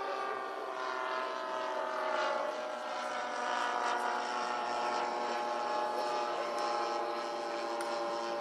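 Twin propellers of a 1:8 scale Dash 8 RC model airliner flying overhead: a steady multi-tone drone whose pitch drifts slightly as the model passes.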